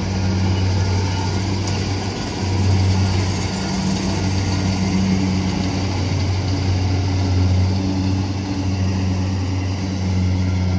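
Kubota DC68 King Pro rice combine harvester cutting paddy: its diesel engine runs with a steady low hum over the noise of the cutting and threshing machinery.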